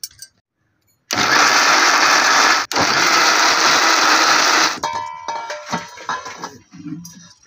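Electric mixer grinder grinding peanuts, onion, tomato and tamarind water into a wet masala paste. The motor starts about a second in and runs for under four seconds, with a split-second break partway through. It is then switched off and spins down, its whine fading over a second or two.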